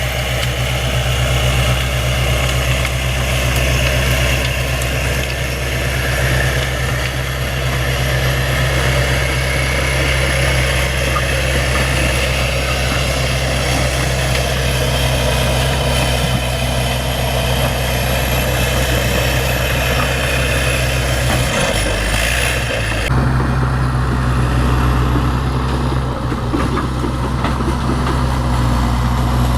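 Bulldozer's heavy diesel engine running steadily with a deep drone. The tone changes abruptly about three-quarters of the way through.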